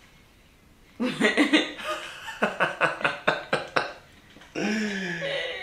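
A man laughing: a run of quick, repeated laughs, then a long drawn-out voiced sound about four and a half seconds in.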